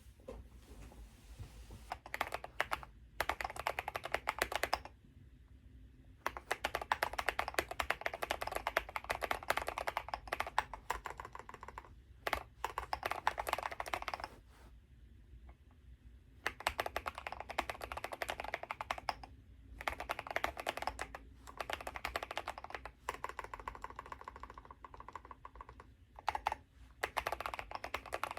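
Fast typing on a mechanical keyboard, in runs of a few seconds broken by short pauses.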